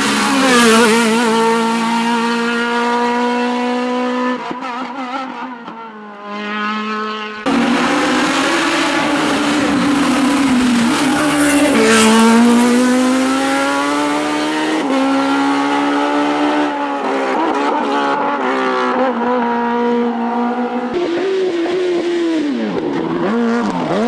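Sports prototype race cars passing at full throttle, their high-revving engines rising and dropping in pitch with gear changes. The sound fades away about five seconds in, then cuts back in suddenly with another car, and near the end the pitch dips several times as it shifts down.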